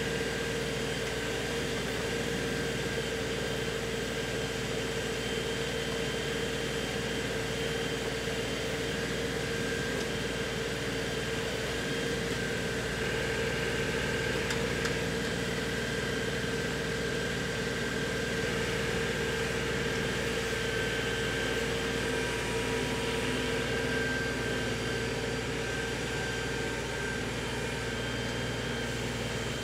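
LS XR3135 compact tractor's diesel engine running steadily while its backhoe digs and scrapes topsoil, with a constant pitched hum over the engine note.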